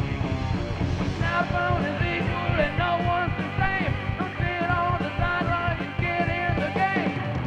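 Heavy metal band playing live: a distorted electric guitar line with pitch bends over bass guitar and drums.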